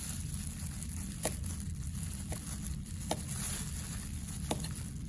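A few faint, sharp clicks of dissecting tools against a dissection tray as a scalpel trims tissue, over a steady low room hum.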